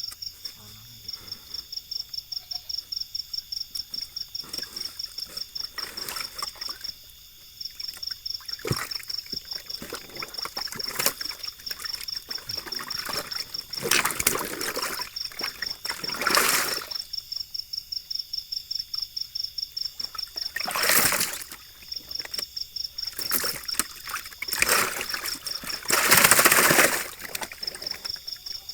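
Insects chirping in a steady high pulse about four times a second, with several bursts of water splashing, the loudest near the end, as catfish broodstock are released into a pond.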